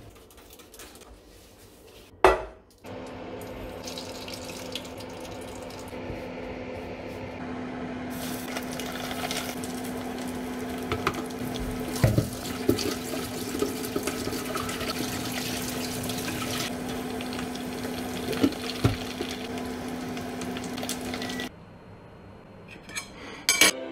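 Kitchen tap running steadily into a stainless steel sink while dishes are washed, with clinks of crockery and a couple of sharp knocks.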